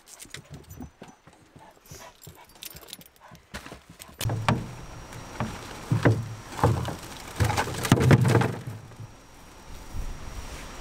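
Dogs' claws clicking and scrabbling as they jump up into a car boot, a rapid patter of small ticks. About four seconds in, wind starts rumbling on the microphone, and loose plastic rubbish rustles and crackles as it is dropped into a plastic wheelie bin.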